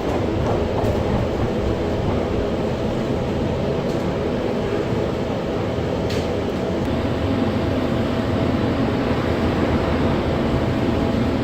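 Train running, heard from inside the carriage: a steady rumble and hum with a few faint clicks.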